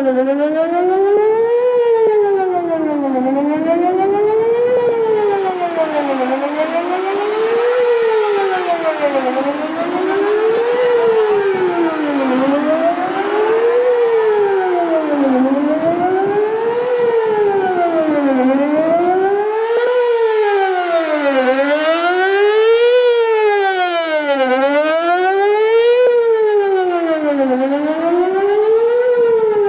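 Whelen WPS-4008 electronic outdoor warning siren sounding a wail tone for a monthly test, its pitch rising and falling evenly about every three seconds.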